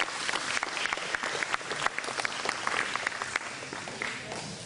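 A group of people applauding, many quick hand claps together, thinning and getting quieter near the end.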